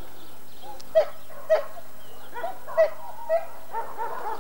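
A dog barking: four sharp barks spread over a few seconds, with fainter yelps in between.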